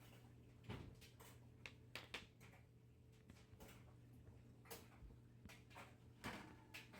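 Faint, scattered crunches and clicks of someone eating popcorn close to the recording phone, over a low steady room hum.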